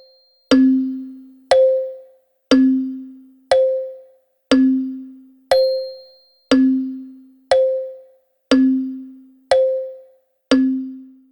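Wall clock ticking once a second, each tick a sharp click followed by a short ringing tone that dies away before the next.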